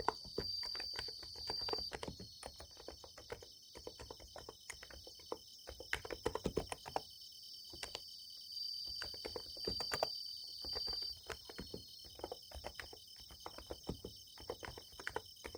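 Typing on a Niz Plum x108 electrostatic capacitive keyboard: quick irregular runs of keystrokes with short pauses. Behind it, a steady high chorus of summer-night insects, with one louder trill at the start and another a little past the middle.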